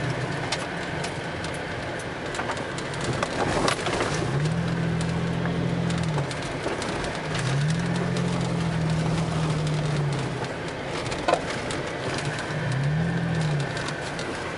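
Inside a vehicle's cab on a rough dirt trail: steady road noise with rattles and knocks from the bumpy track, and a low engine hum that rises in pitch, holds and drops back three times as the throttle comes on and off. A sharp knock stands out about two-thirds of the way through.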